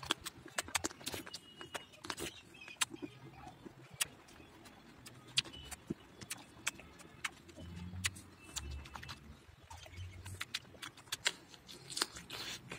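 A person eating juicy plums and peaches up close: bites into the fruit and wet chewing, with many sharp, irregular mouth clicks and smacks.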